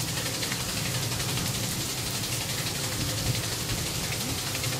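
Welded-steel overshot water wheel turning, with its step-up gear and generator running: a steady low mechanical hum over the even rush of falling water.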